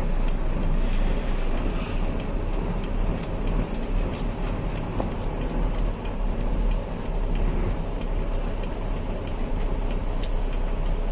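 Loaded heavy truck on the move: steady engine and road rumble, with a light, even ticking at about two to three a second throughout.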